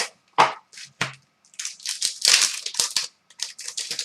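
Foil wrapper of a hockey card pack being torn open and crinkled in the hands: a run of short, irregular rustles, loudest about two seconds in.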